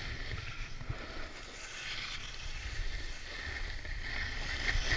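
Snowboard sliding and carving down groomed snow, its edge scraping and hissing on the snow, with wind buffeting the helmet camera's microphone in a low rumble. The scraping grows louder near the end.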